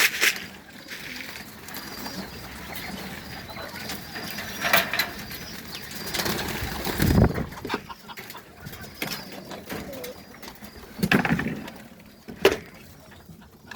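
Domestic pigeons cooing in a loft, with wings flapping and scattered sharp knocks and taps.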